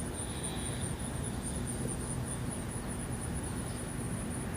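Steady low background hum with a high chirp pulsing evenly several times a second, like insects chirping.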